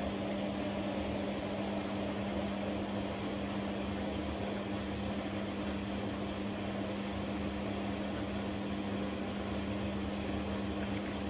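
Samsung 10 kg automatic washing machine filling with water at the start of its test-mode cycle: a steady hum with an even rush of water coming in.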